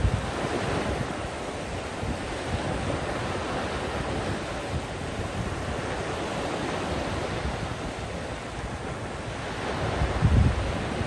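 Small Gulf of Mexico surf breaking and washing up the sand in a steady rush. Wind buffets the microphone with low rumbles, strongest about ten seconds in.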